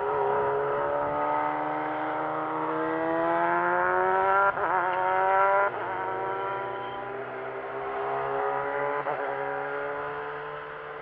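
Hill-climb race car accelerating, its engine note rising steadily with a short break at each gear change, about four and a half, six and nine seconds in.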